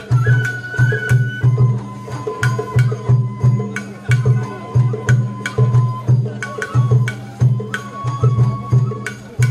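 Sawara bayashi festival music played on the float: taiko drums beat steadily, two or three strokes a second, with sharp clicking strikes over them. A bamboo flute holds long notes, changing pitch every second or so.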